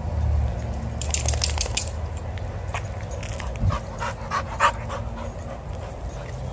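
A dog panting close by in quick, short breaths, heaviest about three to five seconds in, over a steady low rumble.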